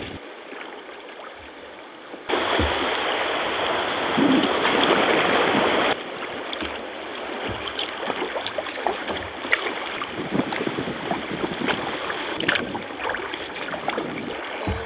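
Sea kayak paddling: water lapping and sloshing at the hull with small paddle splashes and drips. A louder stretch of steady rushing noise runs from about two to six seconds in, and the sound changes abruptly twice.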